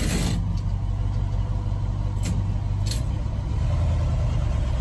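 Steady low rumble of a running vehicle, heard from inside the cab, with a few brief rustles and knocks of the phone being handled, at the start and twice near the middle.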